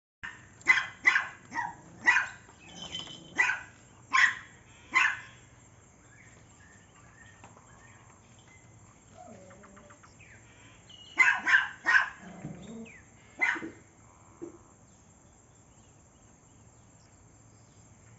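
A dog barking in two bouts: about eight sharp barks in quick succession over the first five seconds, then, after a lull, about five more from around eleven seconds in.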